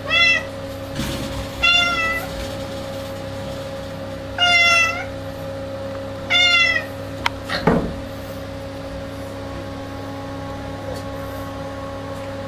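Bengal cat meowing four times in short calls over the first seven seconds, followed by a single thump a little before the eight-second mark.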